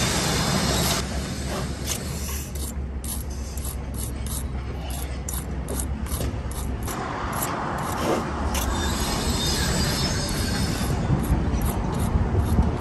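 A bricklayer's hand tool scraping and rubbing along fresh mortar joints in brickwork, in quick repeated strokes of about three or four a second, then rougher rubbing near the end.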